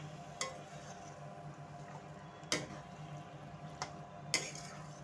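Spatula stirring mashed jackfruit and masala in a metal kadai, with a few sharp knocks of the spatula against the pan, spaced irregularly.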